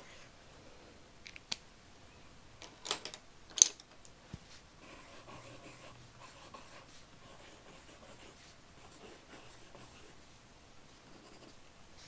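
Coloured pencil scribbling on sketchbook paper: a faint, steady scratching. A few sharp clicks and taps come between one and four seconds in, the loudest at about three and a half seconds.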